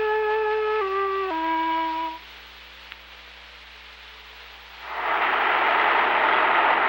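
Solo flute playing a slow melody of stepped notes, ending on a held low note about two seconds in. A quiet hiss follows, and then, about five seconds in, a steady loud rush of street noise comes in.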